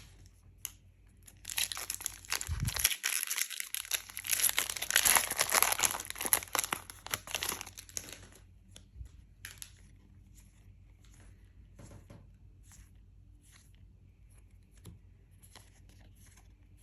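A trading-card booster pack's wrapper being torn open and crinkled for several seconds, followed by faint light clicks of cards being handled.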